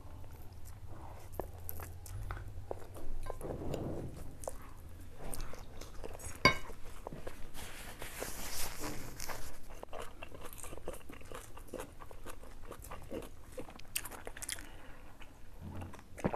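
Close-miked eating sounds of two people eating spicy instant noodles: chewing, a long hissing slurp about eight seconds in, and many small clicks of forks on plates, with one sharper click about six seconds in.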